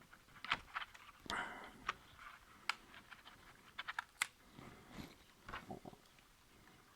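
Faint, irregular plastic clicks and taps from handling a replacement laptop keyboard and its ribbon cables, with a short rustle about a second in.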